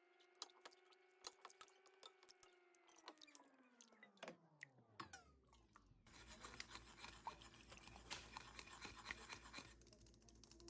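Faint scraping and clicking of a spoon working soup through a sieve. A faint held tone slides down in pitch and fades about four seconds in. After about six seconds a low hiss joins the denser scratching.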